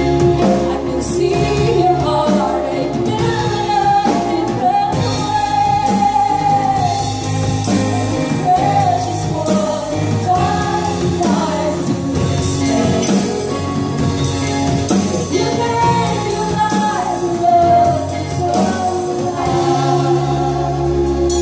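A live worship band playing a contemporary worship song: female lead vocals over keyboard, electric bass and a drum kit keeping a steady beat.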